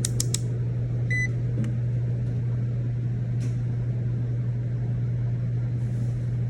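Steady low mechanical hum, with three sharp clicks at the start and a short electronic beep about a second in.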